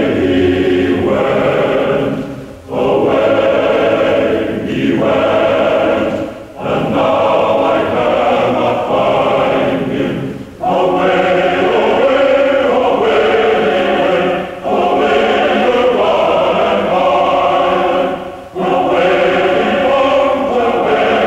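An a cappella choir singing a film score in sustained chords, phrase after phrase of a few seconds each with brief breaks between them.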